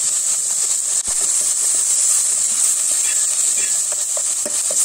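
Chopped onion, green chillies and freshly added tomato sizzling in hot oil in a steel pan: a steady high hiss.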